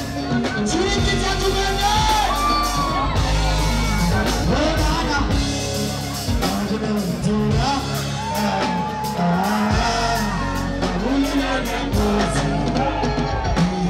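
Live band music with drums and bass guitar, and a man singing into a microphone over it.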